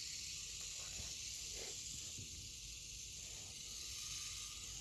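Fidget spinner spinning on its bearing between the fingers, giving a steady airy whirring hiss.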